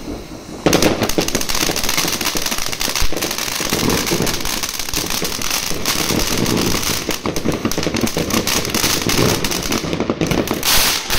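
Weco Yin & Yang fountain battery spraying sparks with a steady hiss and dense crackling. A new fountain in the battery ignites with a sudden jump in level a little under a second in.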